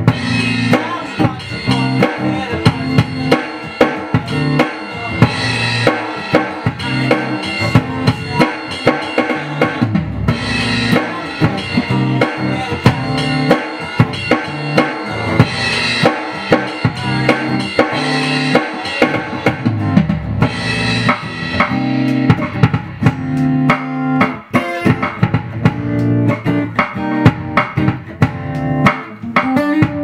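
Roland HPD-20 HandSonic electronic hand percussion pad, struck by hand and playing a drum beat, with an acoustic guitar strumming chords along with it.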